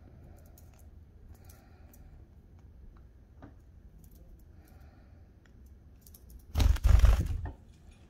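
Faint light clicks and taps on a tabletop, then near the end a loud thump and rustling lasting about a second as a cat steps onto the table right by the camera.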